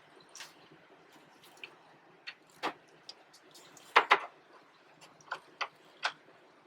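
Light plastic clicks and taps from twisting a 9005 halogen high-beam bulb out of a car headlight housing and handling it, about a dozen scattered clicks with the loudest pair about four seconds in.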